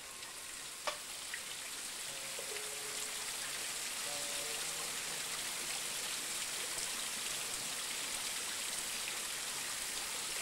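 A steady rain-like hiss that swells up over the first few seconds, with a few faint held music notes and one sharp tap about a second in.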